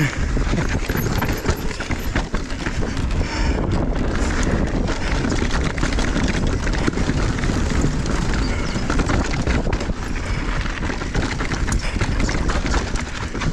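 Mountain bike riding over a rocky dirt trail: tyres crunching over dirt and stones and the bike rattling with constant small knocks, under a heavy rumble of wind on the microphone.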